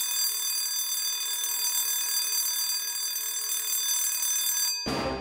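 Electric school bell ringing steadily for nearly five seconds, then cutting off suddenly: the opening sound effect of a radio programme jingle.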